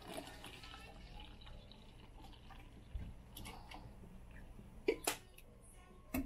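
Coffee poured from a coffee pot into a paper cup, a faint steady trickle as the cup fills. A few light clicks partway through, then a couple of sharp knocks about five seconds in and another right at the end.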